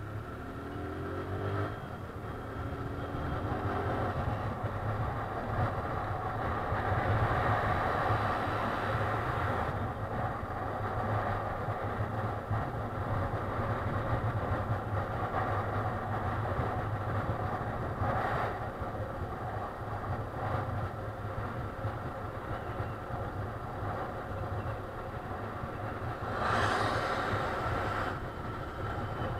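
Motorcycle engine heard from a helmet chin-mounted camera, with wind rushing over the microphone as the bike picks up speed. The engine pitch rises in the first few seconds as it pulls away. There is a brief louder rush of noise near the end.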